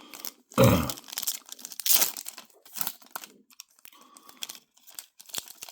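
A trading card pack wrapper being crinkled and torn open in a series of irregular crackles, the pack sticky and slow to open. A short louder low sound comes about half a second in.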